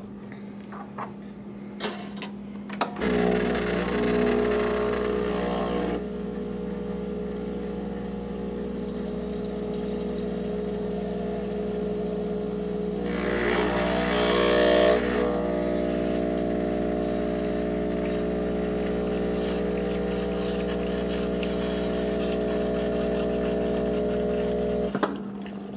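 Espresso machine pump running steadily during extraction of a double shot, a continuous hum that starts about three seconds in after a couple of clicks from the controls, shifts in tone a couple of times, and cuts off just before the end.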